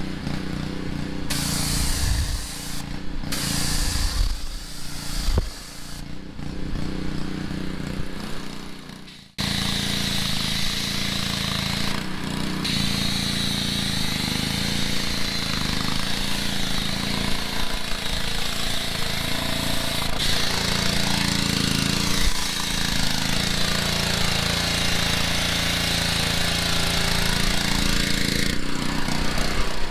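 Gas pressure washer engine running steadily while the wand sprays water in spurts; about nine seconds in the sound changes to a continuous hiss of spray from a foam cannon over the running engine.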